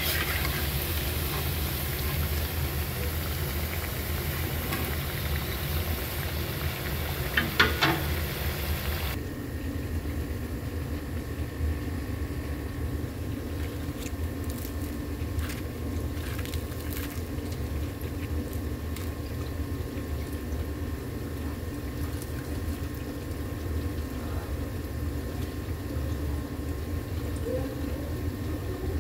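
Potato and onion pakoras deep-frying in hot oil in a wok, a steady sizzling hiss, with a brief clatter of the metal slotted spatula against the wok about 7 to 8 seconds in. The sizzle cuts off suddenly at about 9 seconds, leaving a steady low hum and a few light clicks.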